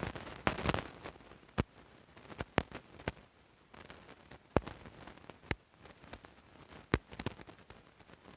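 A string of sharp clicks and knocks at irregular intervals, about a dozen in all, with a faint hiss between them.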